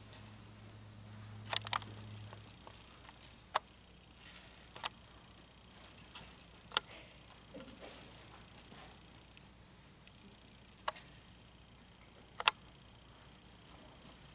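Sparse, sharp metallic clinks and jingles from a western horse's bit and bridle hardware, as the horse stands and mouths the bit while its reins are handled.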